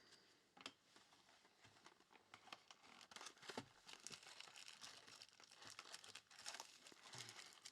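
Faint crinkling and tearing of plastic wrap as a trading-card box or pack is opened: scattered small crackles, busier from about three seconds in.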